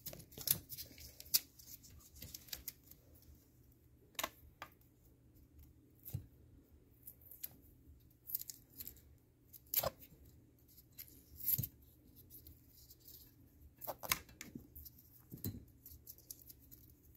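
Hands peeling tape off a recliner's pull cable and handling the cable: scattered faint clicks and crinkles, a dozen or so spread out with quiet between them.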